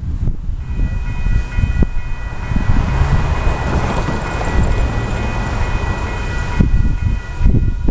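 Railroad crossing warning bell ringing, a steady clang of several bell tones as the crossing activates for an approaching train, stopping about seven and a half seconds in. Cars pass over the crossing and wind rumbles on the microphone underneath.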